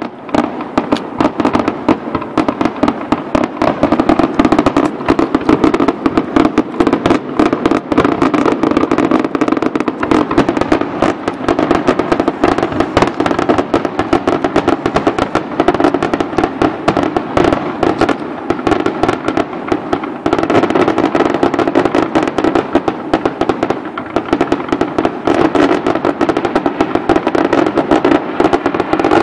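Fireworks display: aerial shells bursting in quick succession, a dense, continuous stream of bangs and crackles with no let-up.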